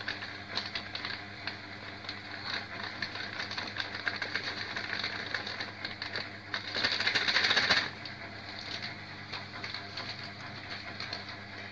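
Plastic bag crinkling and rustling as rice flour is poured and shaken out of it into a metal pot, with many small crackles and a louder stretch of crinkling about seven seconds in.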